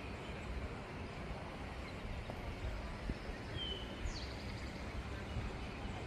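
Steady outdoor background noise, heaviest in the low rumble, with a brief faint bird call a little past halfway through.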